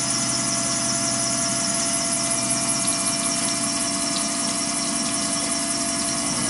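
Tormach 770 CNC mill's spindle running and an end mill cutting a Glock 26 Gen 5's steel slide under flood coolant: a steady machine whine over hiss.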